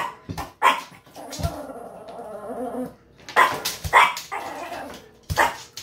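Small dog barking in short, sharp barks: a few near the start, two more a little past halfway and another near the end, with a softer wavering whine between them.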